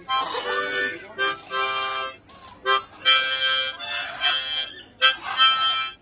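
Harmonica played in short phrases, held chords and notes of about a second each with brief breaks between them.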